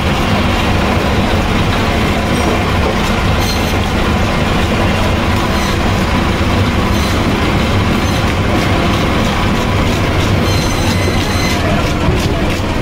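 Steady, loud rumbling and clattering noise, with the scratchy rasp of a handheld scaler scraping scales off a rohu fish.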